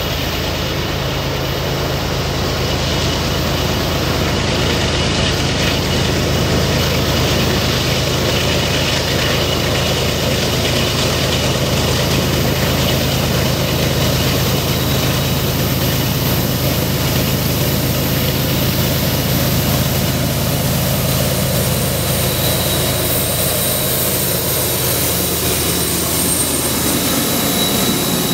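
GE diesel locomotives (an ES44AC Gevo leading an AC44CW) hauling a loaded unit coal train up the grade, their engines working under load with a steady deep drone that grows louder as they approach. In the last few seconds, as the units pass, a thin high steady squeal from wheel flanges on the curve comes in.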